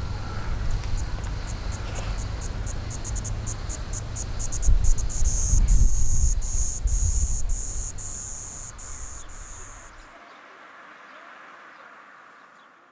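Cicadas singing: a high rattle of clicks that quickens over several seconds into a run of loud, regular buzzing pulses, over a low rumble. Both cut off about ten seconds in, leaving a faint hiss that fades away.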